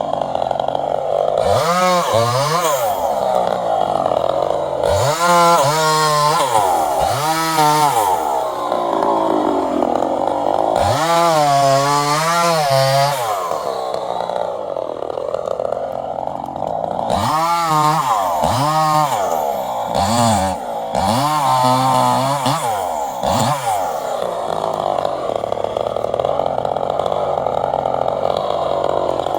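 Chainsaw running and cutting wood, its engine revving up and dropping back again and again, about ten times, between stretches of steadier running.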